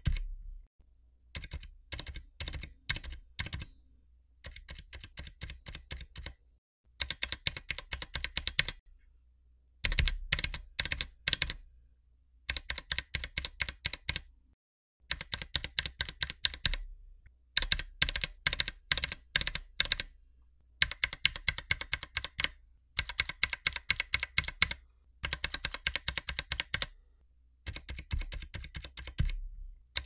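A single SA-profile double-shot ABS keycap pressed repeatedly on a mechanical keyboard, in short runs of keystrokes with brief pauses. The switch underneath changes between runs, from Zilent silent tactiles to Gateron Ink linears. The runs in the first several seconds are noticeably quieter than the later ones.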